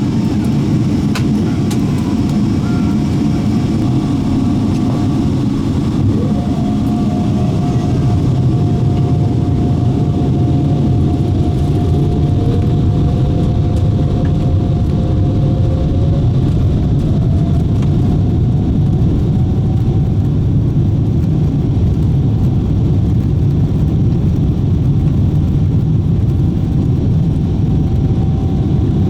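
Boeing 777-300ER's GE90 turbofan engines heard from inside the cabin at takeoff: a loud, steady rumble with whining tones that rise in pitch in the first half as the engines spool up for the takeoff roll.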